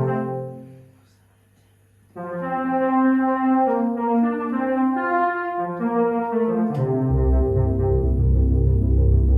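Electronic organ playing with a brass-like voice. A chord fades out in the first second, then after a short silence sustained chords start abruptly, and a heavy bass line joins about seven seconds in.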